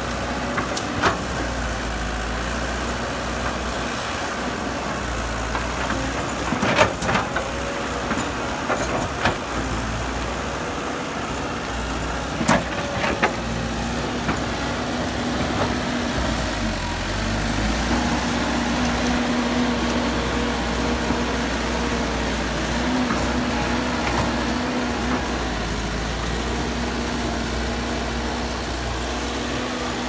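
Caterpillar E120B hydraulic excavator's diesel engine running steadily while it digs. A few sharp knocks and clanks come about a second in, around 7 and 9 seconds, and twice near 13 seconds.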